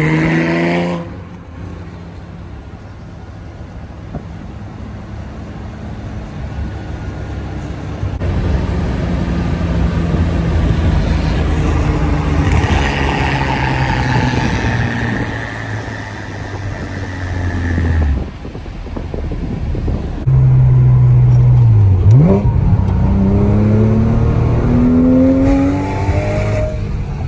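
2006 Porsche Cayman S flat-six, breathing through aftermarket headers and exhaust, pulling through the gears. The engine is quieter on light throttle for the first several seconds, then its pitch climbs and drops back at upshifts about two-thirds of the way in and twice more near the end.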